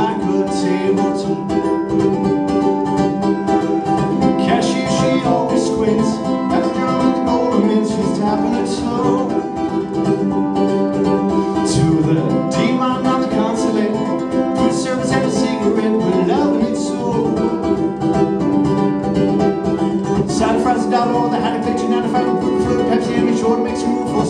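Live acoustic guitar strummed in a steady rhythm, with a man singing a folk song over it.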